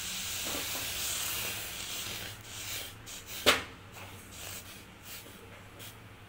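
Milk and water heating in a steel saucepan on a gas stove, a soft hiss that fades over the first few seconds. A single sharp knock comes about three and a half seconds in.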